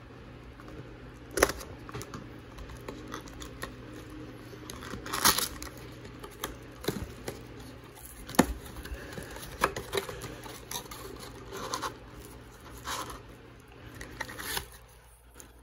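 Hands handling a trading-card hobby box and its packs: scattered sharp clicks and taps with short rustles of cardboard and foil wrappers, the loudest clicks about a second and a half and eight and a half seconds in.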